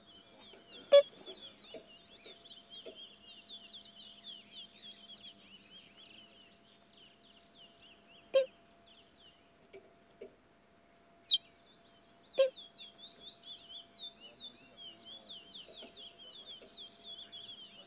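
Birds chirping and twittering in a dense, continuous stream of rapid high chirps. Four loud, sharp clicks cut through, one about a second in and three more around the middle, over a faint steady hum.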